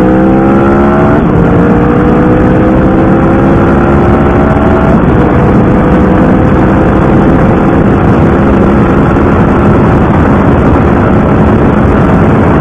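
Cruiser motorcycle engine accelerating through the gears. Its pitch climbs, drops at an upshift about a second in and again about five seconds in, then climbs slowly under heavy wind noise.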